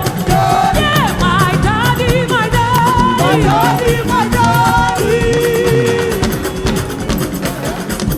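Live gospel worship song: a solo singer with ornamented, gliding vocal runs over a band with a steady beat and a bass line.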